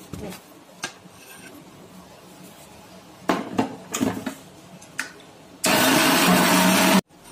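Clicks and knocks of a steel mixer-grinder jar being lidded and set onto its base, then a Kenstar Senator mixer grinder's motor runs loud and steady for about a second and a half near the end, grinding masala with water into a paste, and stops abruptly.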